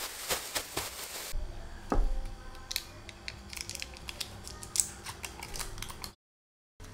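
A plastic zip-top bag of crushed biscuits crinkling and crackling as it is shaken. Then a thump, followed by the foil wrapper of a small butter portion being peeled open with light crinkles and ticks.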